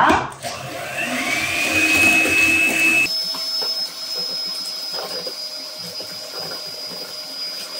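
Electric hand mixer whipping French meringue (egg whites and sugar) in a stainless steel bowl at medium speed, the beaters working it toward glossy stiff peaks. The motor whine rises in pitch as it spins up about half a second in, then holds steady; a little past three seconds it shifts abruptly to a quieter, higher whine.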